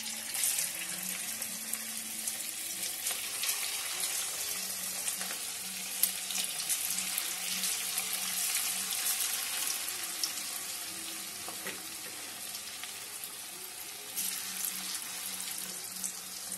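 Batter-coated chicken pieces deep-frying in hot oil in a steel kadai, a dense crackling sizzle that starts suddenly as the pieces go in and swells again about fourteen seconds in.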